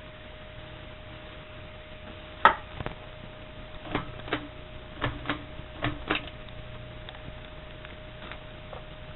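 Baseball-themed ceiling fan running with a steady hum. Irregular sharp clicks and ticks, several of them in quick pairs, come from about two and a half seconds in to about six seconds.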